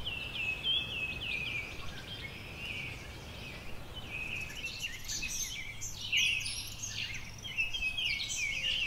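Several birds chirping, a busy run of short, quickly repeated chirps that sweep downward, growing denser with higher calls from about halfway through.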